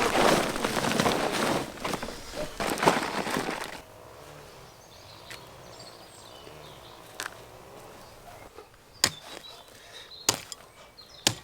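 Gritty scraping and rustling of earth and sand being scooped up for a vegetable bed, stopping a few seconds in, followed by a handful of sharp, separate knocks.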